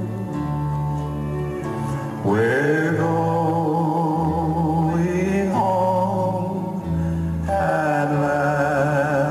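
Two men singing a slow country song to acoustic guitar, holding long notes over a low bass line.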